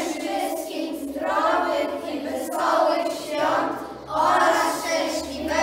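A group of children singing together in unison, a few sung phrases with short breaks between them.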